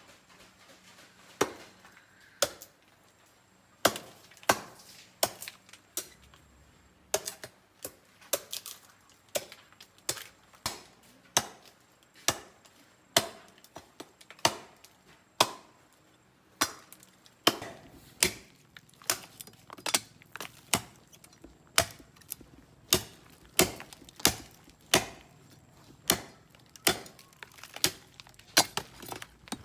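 A long series of sharp chopping blows, a little over one a second and somewhat irregular: a blade striking wood or thick plant stems.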